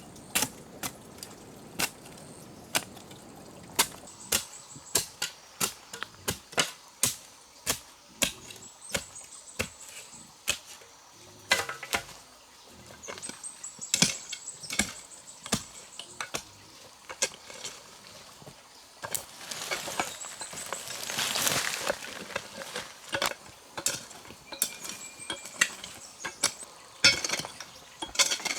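Many sharp knocks and taps at an irregular pace, with a rustling swell about twenty seconds in.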